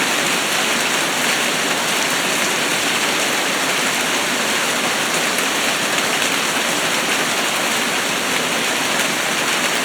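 Heavy downpour of rain falling steadily on the ground and the surfaces around it, a dense even hiss.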